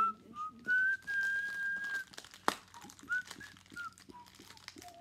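A person whistling short wavering, gliding notes in a mock whale talk, with one long held note about a second in. A single sharp click about halfway through.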